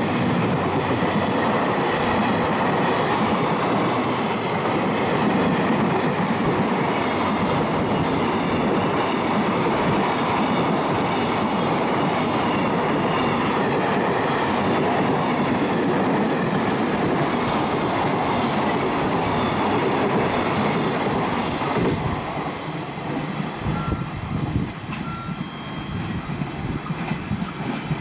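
Mostly empty container flat wagons of a freight train rolling past at speed: a steady rumble and rattle of steel wheels on rail. About 22 seconds in it falls away as the last wagon passes, leaving separate clacks of wheels over rail joints and two brief high squeaks.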